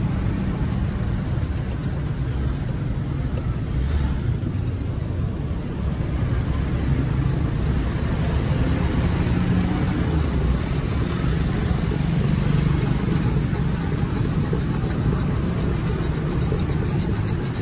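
A handheld whisk frother spinning in a drink inside a stainless steel cup to mix it, over a steady rumble of road traffic.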